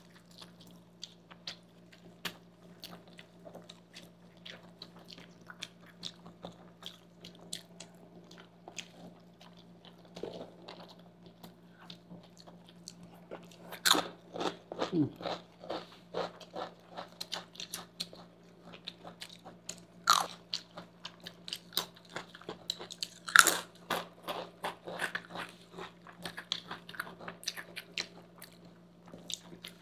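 Close-up eating sounds of people chewing sauced pasta and noodles, with frequent small wet clicks of the mouth. A few loud crisp crunches in the second half come from chips being bitten. A faint steady low hum runs underneath.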